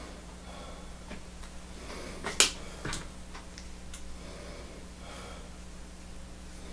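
A small object being handled between the fingers gives a sharp snap about two and a half seconds in, then a lighter click and a few faint ticks, over a steady low hum.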